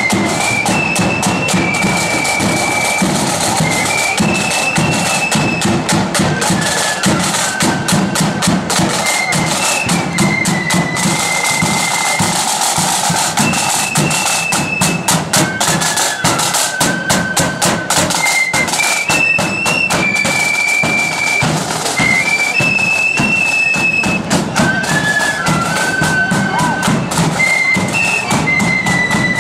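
Marching flute band playing a tune: a high flute melody over snare drums and bass drum beating a steady march rhythm.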